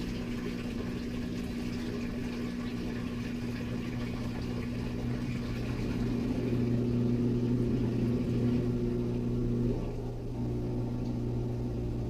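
Drain pump of a Kenmore Elite HE3t (Whirlpool Duet) front-loading washer running a steady hum as it pumps the wash water out during the diagnostic test's drain step, a sign that the drain is working. The hum gets a little louder about halfway through and dips briefly near the end.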